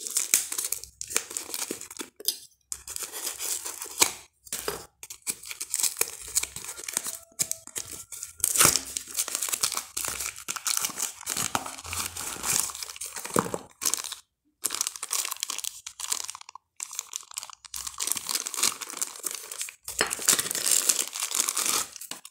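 Tape-wrapped cardboard parcel being torn open and crumpled by hand: irregular bursts of ripping and crinkling of plastic packing tape and cardboard, with short pauses between them.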